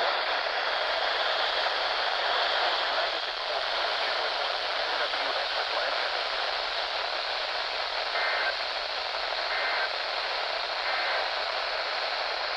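Steady static hiss from a weather radio receiver on a weak signal, with no clear broadcast, and three short, faint tones near the end.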